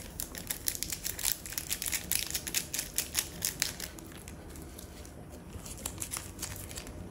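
Small foil seasoning sachet crinkling with a dense run of sharp crackles as chili powder is shaken out of it onto a plate. After about four seconds this gives way to sparser rustling of the sachets and the handling of a pair of scissors near the end.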